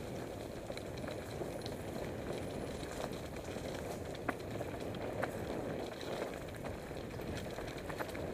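Mountain bike riding down a dirt forest trail: a steady rumble of the tyres rolling over the ground, with scattered sharp clicks and knocks as the bike rattles over bumps.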